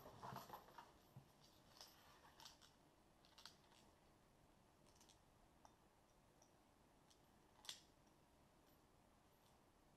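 Faint handling noise from unpacking a chrome faucet: cardboard packaging rustling and small clicks in the first few seconds, fading to near silence, with one sharper click about three quarters of the way through.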